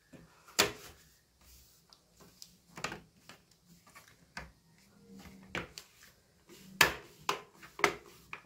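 Plastic snap clips of a Lenovo G50 laptop's front screen bezel clicking into place as fingers press along its lower edge: about eight sharp, irregular snaps with faint rubbing of plastic between them.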